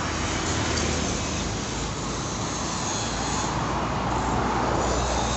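Road traffic passing close by: a continuous rush of tyre and engine noise, with a low engine hum that builds toward the end as a heavier vehicle draws near.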